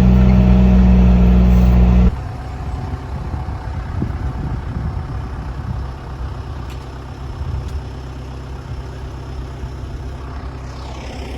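A vehicle engine running with a loud, steady hum; about two seconds in, the sound cuts abruptly to a much quieter, rougher rumble.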